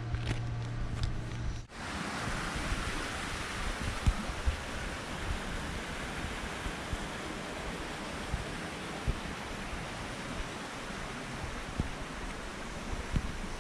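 Mountain stream rushing over rocks, a steady even wash of water noise that begins with a sudden cut about two seconds in. Before the cut, a low steady hum.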